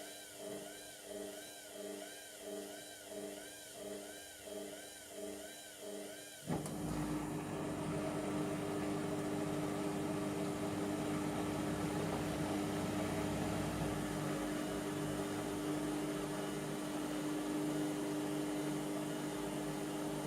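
Indesit MTWC71252WUK washing machine: the drum tumbles with a rhythmic motor whine that rises and falls about one and a half times a second. About six seconds in, a louder steady hum with rushing water starts suddenly, typical of the drain pump switching on before the spin.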